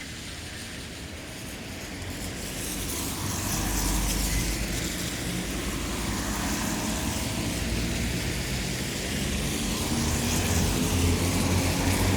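Town traffic on a wet road: cars passing with the hiss of tyres on wet tarmac, one swelling past a few seconds in. Near the end another vehicle's engine grows louder as it approaches.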